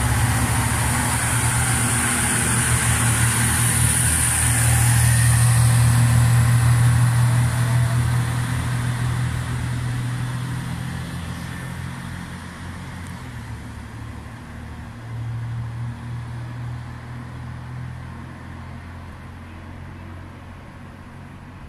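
KiYa 141 diesel track-inspection train's engines running as it pulls out of the station after a stop: a steady low drone, loudest about six seconds in, then fading as the train moves off into the distance, with a brief swell near the middle.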